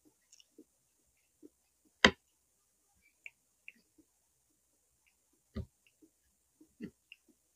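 Eating sounds: quiet chewing and small mouth clicks. A sharp knock about two seconds in is the loudest sound, and duller knocks come about five and a half and seven seconds in.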